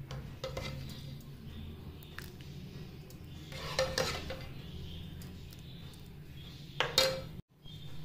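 Crockery clinking: light knocks and clinks against a ceramic bowl, a few about half a second in, a cluster around four seconds in and the loudest just before the end, each with a short ring.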